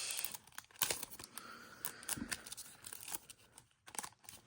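A trading-card pack wrapper being torn open and crinkled, with a rustle of tearing at the start, then light crackles and clicks as the wrapper and cards are handled.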